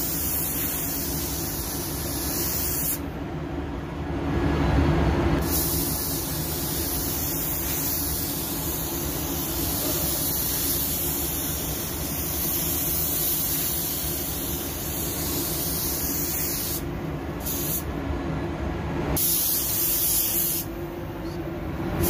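Automotive paint spray gun hissing as it sprays clearcoat, in long passes broken by a few short pauses when the trigger is let go, over a steady low hum.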